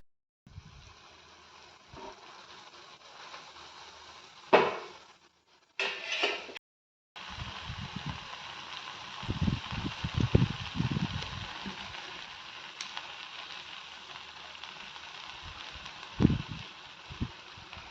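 Maggi noodles cooking in a pan on the stove: a steady hiss of bubbling and sizzling, with a few low knocks of stirring. The sound drops out briefly twice.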